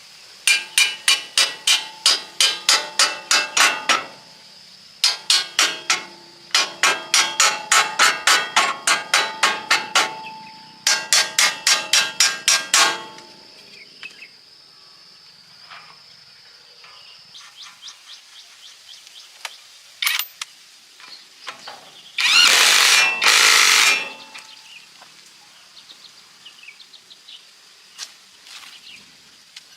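Metal being struck with a hammer in fast runs of blows, about five a second, each blow ringing, in three bursts over the first thirteen seconds. About twenty-two seconds in, a short loud rushing burst lasting under two seconds.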